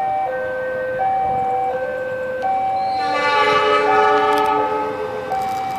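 Two-tone level-crossing warning alarm alternating steadily between a lower and a higher note. About three seconds in, an approaching diesel locomotive's horn sounds a chord of several notes for about a second and a half over it.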